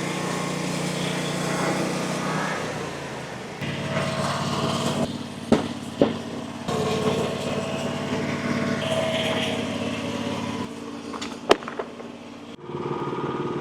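The engine of a Frontier OS35 hydraulic bandsaw mill running, its sound shifting several times as the mill works. Three sharp knocks cut through it, two close together about five and a half seconds in and one more near the end.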